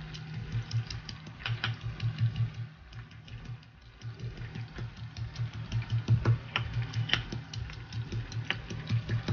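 Stone pestle pounding shallots, garlic, chillies, shrimp paste and dried anchovies in a stone mortar: quick, even strikes, several a second, easing off briefly about three seconds in.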